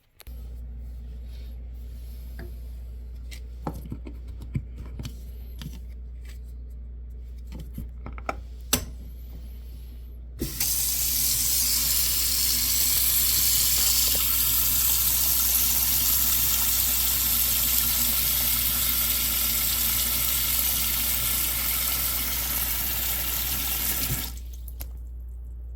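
Faucet water running into a kitchen sink for about fourteen seconds, starting and stopping abruptly. Under it runs a steady low hum, and before the water comes on there are scattered clicks and knocks.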